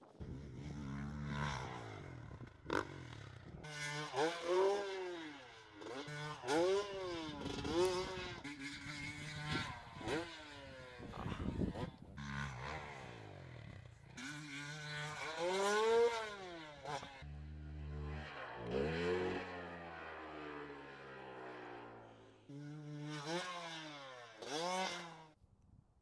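Motocross dirt bike engines revving hard and falling off again and again as the bikes ride and jump, each rev climbing and then dropping in pitch.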